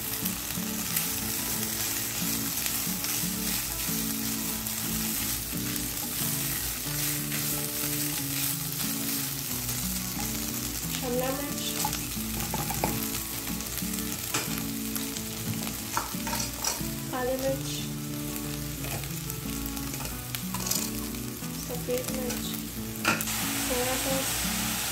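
Shredded chicken, onions and green capsicum frying in oil in a non-stick pan, sizzling steadily. A silicone spatula stirs and scrapes the pan with frequent short scrapes and taps.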